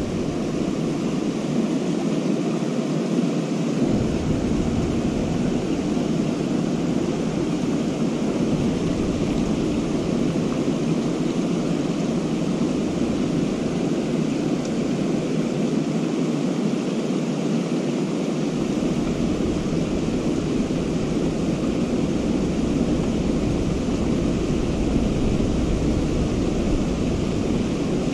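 Steady rushing of a shallow, rocky river, with a low wind rumble on the microphone that comes and goes.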